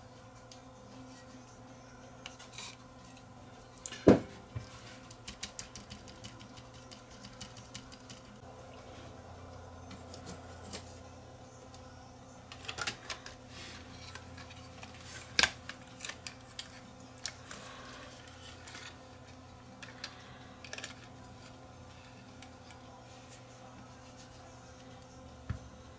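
Small clicks and taps of tools and parts being handled while a DAT recorder's tape transport mechanism is worked on, with two sharper knocks about four and fifteen seconds in, over a faint steady hum.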